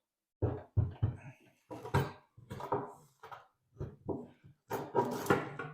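A string of irregular knocks and clunks from the diesel heater unit being handled, set down and tipped on a hard surface to check whether it sits flat.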